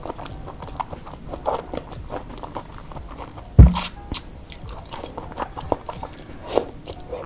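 Close-up mukbang eating sounds: boiled egg noodles in broth being slurped and chewed, with many small wet mouth clicks and smacks. A single dull, loud thump comes about three and a half seconds in.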